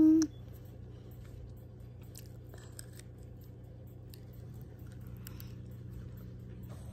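Faint chewing and crunching of small candy tablets, a few soft crunches scattered through, over a steady low background hum.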